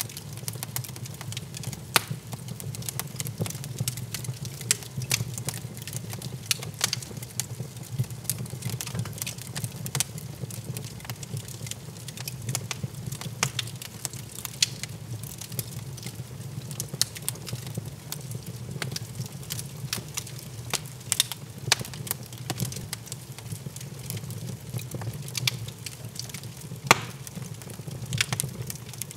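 Wood fire crackling in a fireplace: irregular sharp pops and snaps over a low, steady hum.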